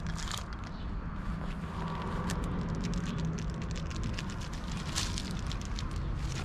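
Rustling and light crackling in grass and dry fallen leaves, many small sharp ticks close together, over a steady low background hum.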